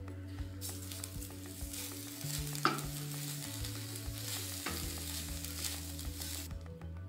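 Wooden spatula stirring grated coconut and sugar around a nonstick frying pan: a scraping, rustling hiss that starts about half a second in and stops shortly before the end, with one sharp knock about two and a half seconds in.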